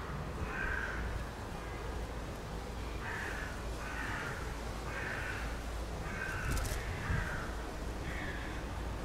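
A crow cawing over and over, about eight short caws with pauses between them, over a low steady background rumble.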